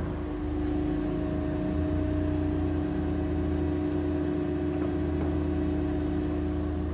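1993 Colchester Magnum 1250 engine lathe running, its 30 hp main drive motor and headstock gearing giving a steady hum and whine as the spindle turns the chuck at a raised speed. A forklift engine runs in the background.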